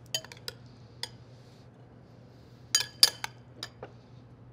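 Metal spoon clinking against glass bowls and a martini glass while scooping ceviche: a scatter of short, sharp clinks, the loudest pair about three seconds in.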